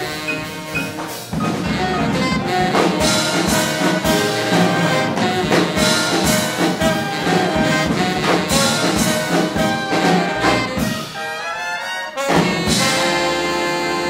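Big band jazz orchestra with trumpets, trombones and saxophones playing a hot swing number. About twelve seconds in the band breaks off and hits a long held chord.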